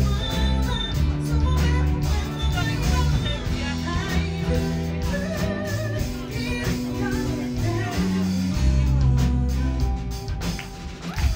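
Live band music with a guitar and a strong bass line, accompanying a circus act.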